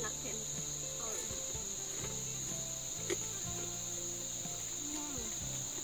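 Forest insects keeping up a continuous, steady high-pitched drone, with a single click about three seconds in.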